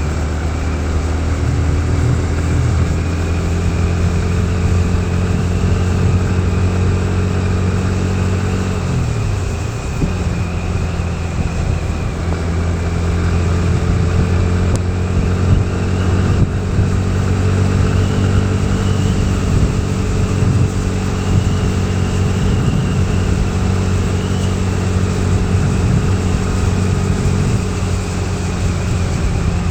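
A road vehicle's engine running steadily on a ride through heavy rain, over a continuous hiss of rain and wet road. About nine seconds in, the engine note falls as the vehicle slows, then picks back up and holds.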